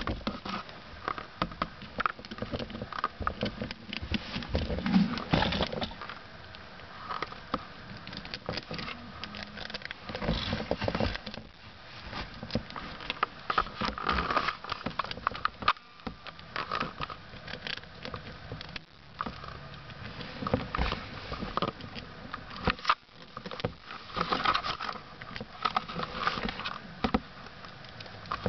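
Hamster rustling about in paper bedding and nibbling a seed treat stick: irregular crackles and clicks that come in denser clusters every few seconds.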